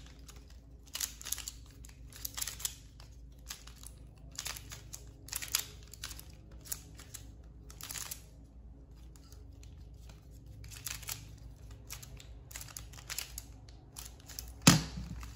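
Qiyi MS pyraminx being turned by hand, its plastic layers and tips clicking in quick, irregular bursts. Near the end come two loud knocks.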